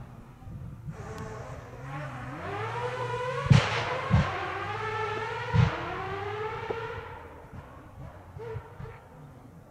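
Rally car engine revving hard and rising in pitch again and again as it accelerates through the gears, with three sharp bangs between the rising runs. It then fades as the car pulls away.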